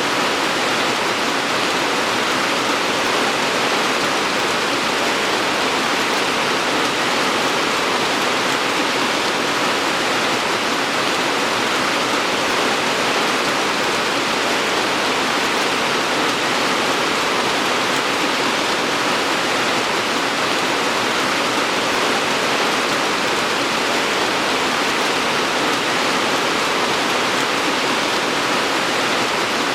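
Steady, even rain falling, a constant dense hiss with no distinct drops or changes.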